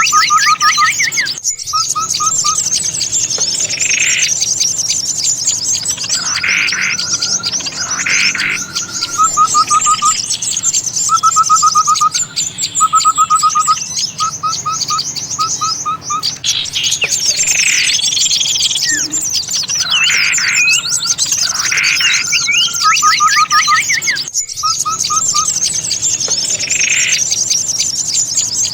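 A bird-lure recording of many small songbirds calling at once in an agitated, excited chorus. There is dense high twittering throughout, with short quick runs of about five notes and louder harsh calls every couple of seconds.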